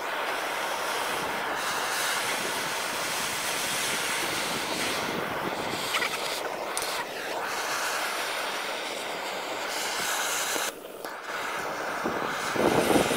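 Handheld butane gas torch burning with a steady hiss, its flame playing over freshly cast lead and a ladle of lead to keep the metal molten. The hiss drops out briefly about eleven seconds in, and a louder burst comes near the end.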